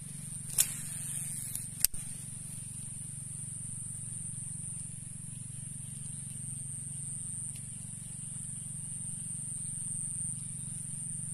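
Steady high-pitched insect drone over a low steady hum, with two sharp clicks about half a second and two seconds in as a fishing rod is cast.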